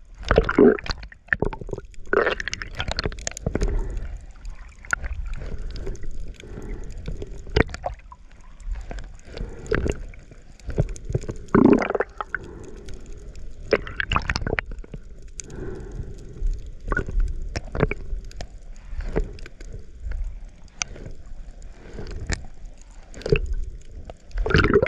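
Sea water sloshing and gurgling around a camera moving at and just below the surface while swimming, with irregular splashes and knocks and a low rumble.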